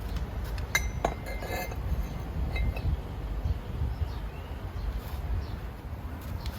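A few light metallic clinks that ring briefly, about one, one and a half and two and a half seconds in, over a steady low rumble: metal parts or tools knocking together during crankcase welding work.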